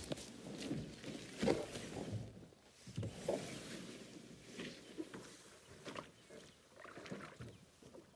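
A canoe being handled at a pond's edge and slid into the water, with irregular knocks and scrapes of the hull and rustling in the grass and brush. The loudest knock comes about a second and a half in.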